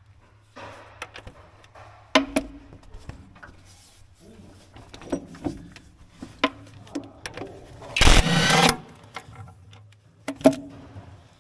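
Metal tools clinking and knocking against the steel housing as bolts are worked, with a short loud burst from a cordless impact wrench about eight seconds in.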